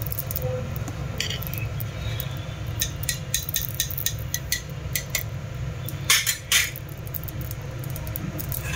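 Steel ladle stirring thick saag in a dark metal pot, clinking and knocking against the pot's sides and rim many times, with a couple of louder knocks about six seconds in. A steady low hum runs underneath.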